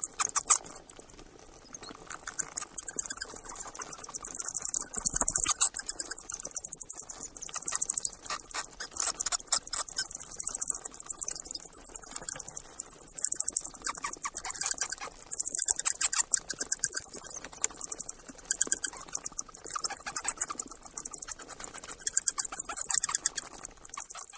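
Mice squeaking: very high-pitched, rapid chittering squeaks in repeated bouts with short pauses between them.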